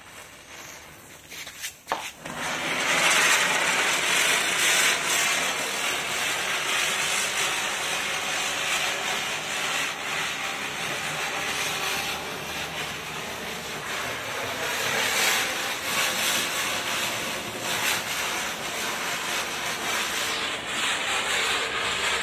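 Ground chakkar (ground spinner firework) fizzing at the fuse as it is lit, then catching about two seconds in and spinning with a loud, steady hiss of spraying sparks. It burns all the way through and cuts off suddenly near the end.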